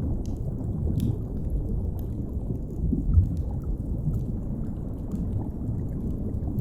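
Deep underwater ambience, a steady low rumble of moving water, with scattered faint crackles and pops of a fire. There is one dull low bump about three seconds in.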